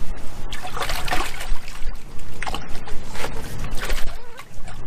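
Water trickling and splashing, with a few sharp knocks, as live bass are handled in a perforated plastic weigh basket.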